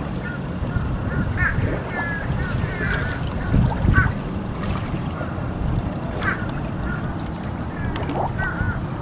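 Waterbirds calling in short, repeated calls over a steady low rumble, with a louder thump about halfway through.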